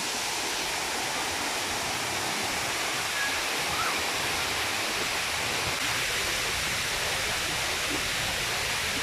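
Steady rush of water pouring down a man-made waterfall wall.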